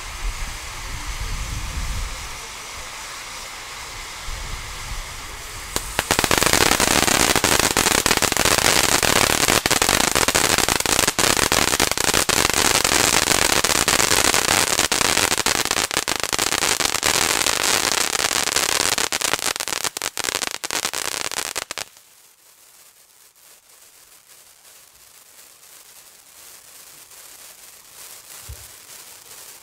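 Sutorobo Taki firework fountain burning: a lighter hiss at first, then about six seconds in a loud, dense crackling hiss that holds for about sixteen seconds and cuts off suddenly as the fountain burns out.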